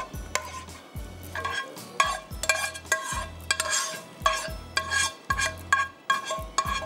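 A metal spoon clanking and scraping against a frying pan in quick, irregular knocks, about two a second, each one ringing. The pan is being scraped out over a cooking pot, and the noise is a clatter ('khatar khatar').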